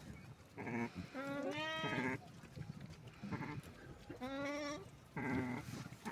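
Sheep bleating: about five bleats, two of them longer and quavering.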